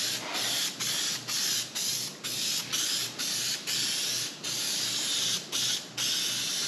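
Aerosol spray-paint can hissing in a quick series of short bursts, about two a second, with brief gaps between.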